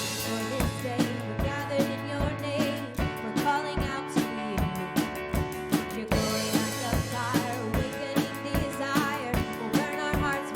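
Worship band music: a drum kit keeping a steady beat with bass and sustained chords, and voices singing over it.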